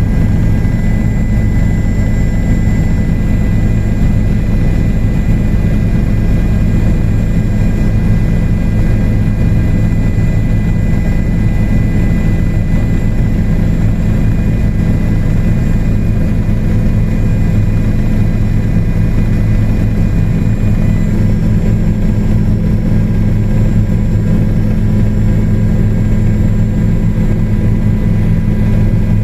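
Helicopter engine and rotor running steadily in flight, heard from inside the cabin: a loud, even drone with a faint steady high whine above it.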